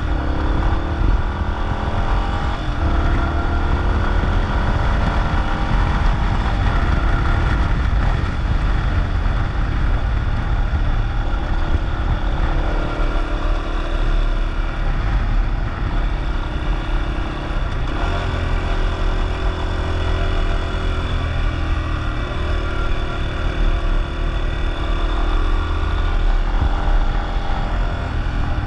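Yamaha XT250's single-cylinder four-stroke engine running under way. Its pitch climbs in the first few seconds, then holds and steps up and down a few times with throttle and gear changes, over a heavy wind rumble on the microphone.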